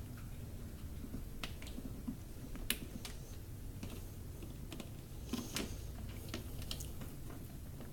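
Faint, scattered clicks and taps of small plastic wiring connectors and parts being handled and plugged together while a lightsaber's light module is swapped for another.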